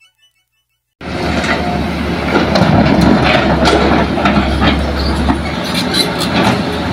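Hitachi hydraulic excavator's diesel engine and a dump truck's engine running with a steady low hum, with scattered clanks and thuds as the bucket dumps soil into the truck's steel bed. It starts suddenly about a second in, after near silence.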